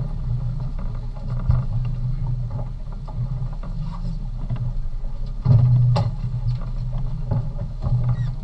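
Boat engine running steadily, with a few sharp knocks.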